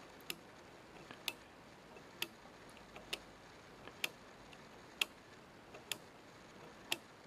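Star wheel of a Sangamo solar dial time switch clicking as it is turned by a fingertip to step the calendar: a sharp click about once a second, with fainter clicks between.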